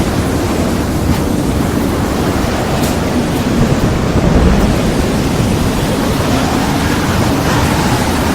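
Steady rushing noise of heavy rain and wind, with a deep rumble underneath that swells briefly about four seconds in.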